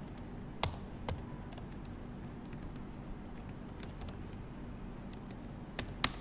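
Computer keyboard keys clicking as a word is typed: scattered single keystrokes, with two louder clicks, one about half a second in and one near the end.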